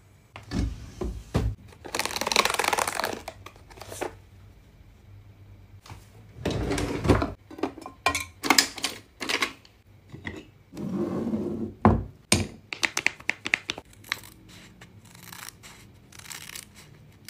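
Close-up handling of skincare products and packaging: a run of sharp clicks and taps from plastic and acrylic containers and short rustles. Near the end, scissors cut into a face-mask sachet.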